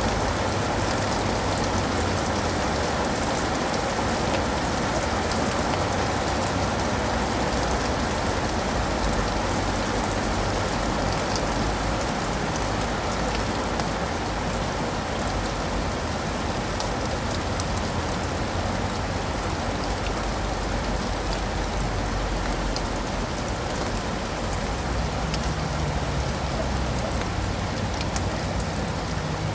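Steady rain falling, pattering on leaves and pavement, with scattered sharper drop ticks. A low rumble runs underneath, and a faint low hum comes in near the end.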